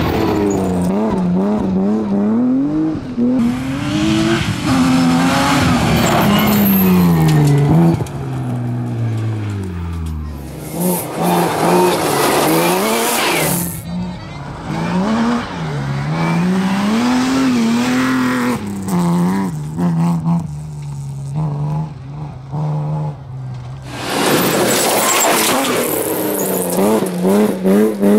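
BMW 325 rally car's straight-six engine revving hard and dropping back again and again through gear changes as it drives past on a gravel stage, with a hiss of gravel and tyres sliding. One pass fades away with a falling engine pitch around ten seconds in.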